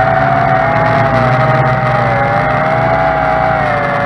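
Small quadcopter's electric motors and propellers whining steadily. Two close pitches waver slightly up and down as the throttle changes.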